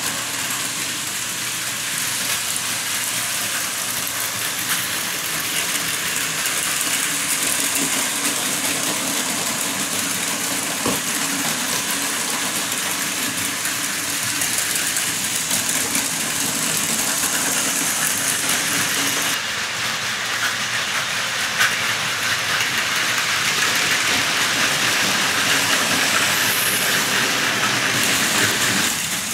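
Plarail Advance toy trains and N gauge model trains running: a steady whirring and rattling of small motors and wheels on plastic and metal track.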